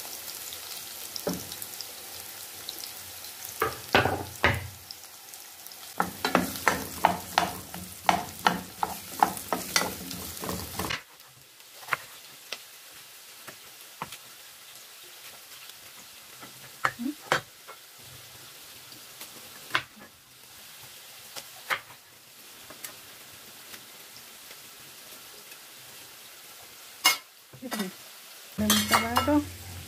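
Onion and garlic sizzling in hot oil in a pot while a wooden spatula stirs them, with a quick run of scrapes and knocks against the pot. About eleven seconds in the sizzle cuts off abruptly, and a chef's knife cuts a bell pepper on a wooden cutting board, giving scattered single knocks.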